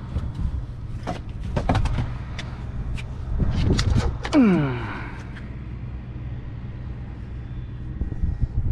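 Clicks and knocks of a flounder being handled and laid against a measuring tape on a fiberglass boat deck, over a steady low rumble. About four seconds in, a short falling tone sounds, after which only the rumble remains.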